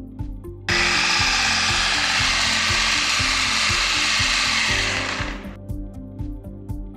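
Loud, steady mechanical whirring noise that starts suddenly about a second in and fades out about five seconds in, over background music.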